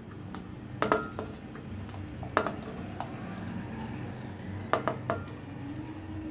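Cucumber chunks dropped by hand into a glass blender jar, with the ceramic plate clinking against the glass: about seven separate knocks and clinks, a couple of them ringing briefly.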